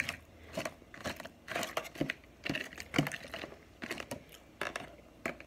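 Snow crab legs being cracked and picked apart by hand over an aluminium foil pan: irregular sharp cracks and crinkles, with the sharpest snaps just after the start and about three seconds in.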